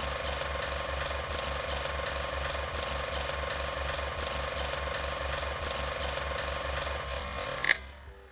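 Film projector running: a steady mechanical clatter of about four clicks a second over a steady hum, ending with one sharp click near the end.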